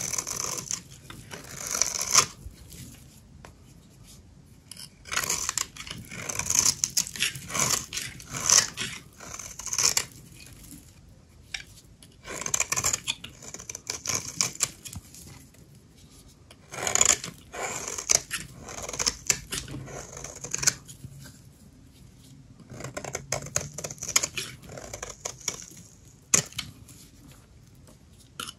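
Dry soap being cut, crisp crackling and crunching strokes in about five spells with short pauses between.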